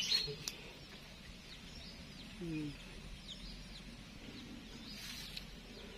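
Faint birdsong: small birds chirping again and again, with one short, lower call about two and a half seconds in.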